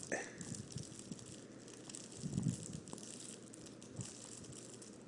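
A Pomeranian chewing and gnawing on a small green frog toy: faint, irregular crinkly chewing and mouthing sounds, with a few soft thumps as the toy and the dog's head move against the bedding.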